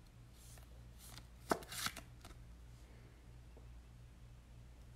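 Trading cards in rigid plastic holders being handled: one sharp plastic click about a second and a half in, followed by a short rustle, over a faint steady low hum.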